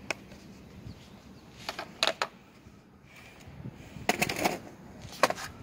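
Scattered sharp plastic clicks and handling noise from the WPL D12 RC truck's transmitter and body being handled to switch the power on: a couple of clicks about two seconds in, a short flurry a little after four seconds, and one more near the end.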